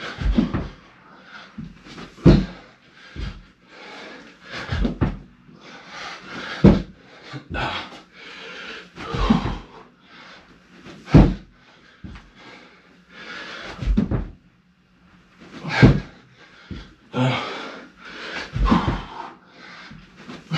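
A person doing chest-to-floor burpees on a hard floor: a thud about every two seconds as the body drops and lands, each with a hard, heavy breath from the effort.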